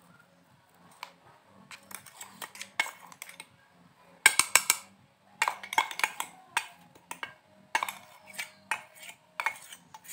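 Ground spice mix being tipped and scraped out of a mixer-grinder jar into a steel bowl with a plastic spoon: irregular clinks, knocks and scrapes of spoon and jar against the metal, with a quick loud run of knocks about four seconds in.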